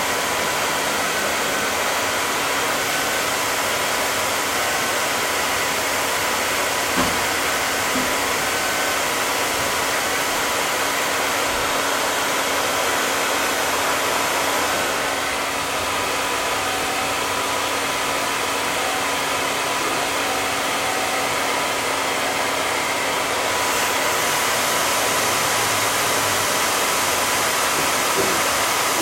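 Handheld blow dryer blowing steadily, a continuous rushing air noise with a faint steady whine.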